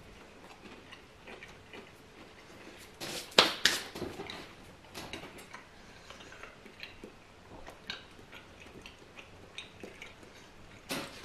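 Quiet chewing of a crispy-coated donair meat dipper, with scattered small mouth clicks and light handling knocks, and a sharper couple of knocks about three seconds in.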